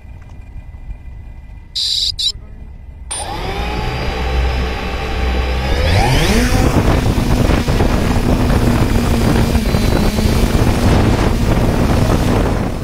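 Small quadcopter drone's electric motors starting up about three seconds in, spooling up with a rising whine as it lifts off, then a steady loud buzzing whine as it climbs. A short high beep comes about two seconds in.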